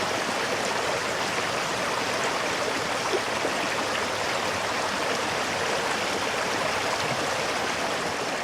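Brook water rushing steadily through an icy mountain gorge, an even, unbroken wash of running water.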